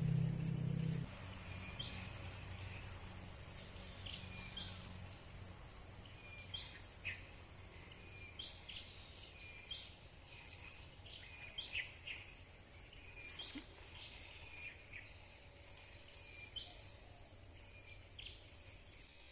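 Outdoor ambience of birds giving short chirps at irregular intervals over a steady, high-pitched drone of insects. A low droning sound cuts off about a second in.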